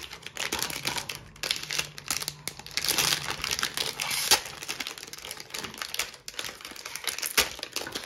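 Packaging crinkling and crackling as it is unwrapped by hand, a continuous irregular rustle with many small clicks.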